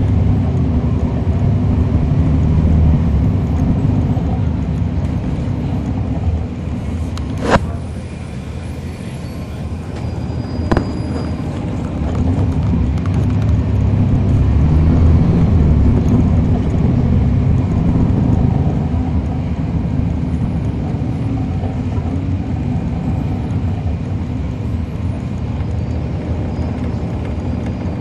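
Cummins ISL9 straight-six diesel and ZF Ecolife automatic transmission of a NABI 416.15 transit bus, heard from inside the cabin while driving, the engine rumble easing off and building again. Two sharp clicks sound a few seconds apart, about seven and eleven seconds in.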